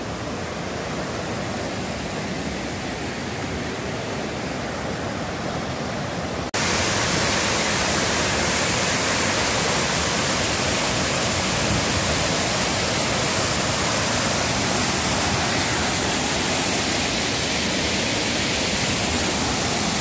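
Creek water rushing over small rocky cascades, then, after a sudden cut about six seconds in, a waterfall plunging over a rock ledge close by: a louder, brighter steady rush of falling water.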